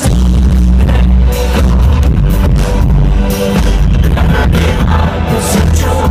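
Live band music played over a festival PA, recorded loud and distorted from the crowd: a heavy booming bass and a steady drum beat dominate, with the rest of the band muddied beneath.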